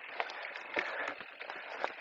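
Electric mountain bike ridden down a stony trail: a steady rush of tyres rolling over dirt and gravel, with frequent irregular clicks and knocks as the bike rattles over rocks.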